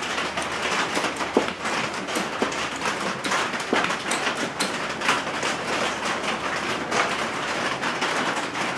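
Steady rain hitting the garage roof overhead, an even hiss full of many small sharp ticks.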